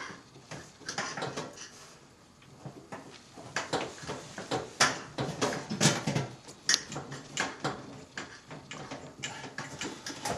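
Irregular clicks, taps and scrapes of a screwdriver knocking against a dishwasher's metal and plastic parts.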